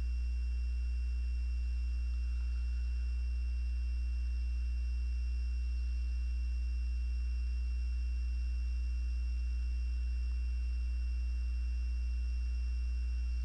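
Steady low electrical hum with a faint high-pitched whine above it.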